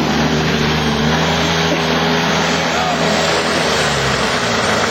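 Small two-stroke engine of an Arctic Cat Kitty Cat children's snowmobile running at a steady speed.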